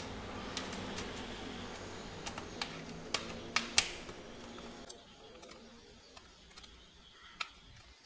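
Sharp clicks and taps of hands handling a laptop's plastic base: a quick run of clicks over the first four seconds, loudest near four seconds in, then a few sparser ones. A low steady hum underneath drops away about five seconds in.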